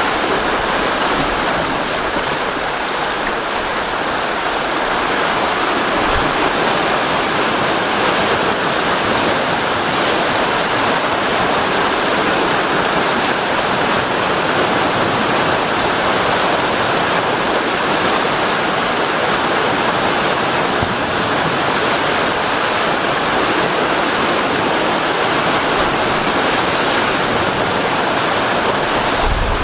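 Rough sea in a strong wind: waves and wind-driven spray making a steady rushing noise, with a brief low thump of wind on the microphone about six seconds in and again near the end.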